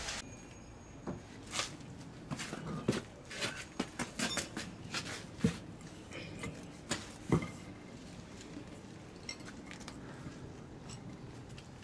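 Sharp clinks and knocks of granite curbstone blocks and hand tools being handled as the stones are set into place, coming thick and irregular for about the first seven seconds, then sparser.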